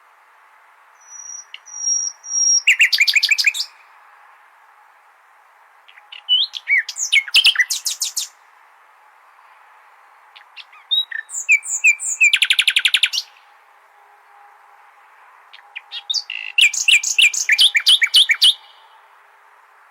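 Common nightingale singing in separate phrases with pauses between them: a long steady high whistle about a second in, then phrases of fast repeated notes and quick glides, the last one near the end. A steady hiss runs under the song.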